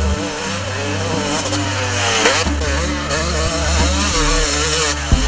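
Dirt bike engine revving hard, its pitch climbing and dropping several times as the rider accelerates and shifts, with one sharp rise and fall about two seconds in.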